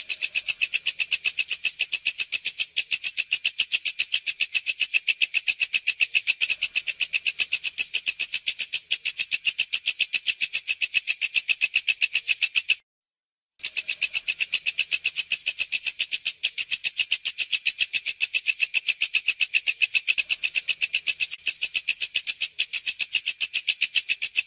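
Walang kecek, a bush cricket or katydid, calling: a fast, even train of high-pitched pulses at several a second. It breaks off for under a second about halfway through, then picks up again.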